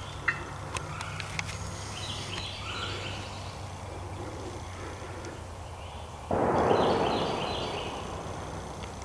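Distant shotgun blast from another hunter shooting a turkey: one sudden boom about six seconds in that rolls away over a couple of seconds. Birds chirp in the background, with a few faint clicks in the first second and a half.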